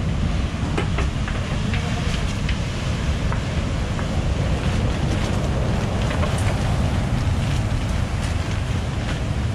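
Heavy surf breaking on the shore in a steady low rumble, mixed with wind buffeting the microphone. Scattered light clicks and knocks from debris being handled sound through it.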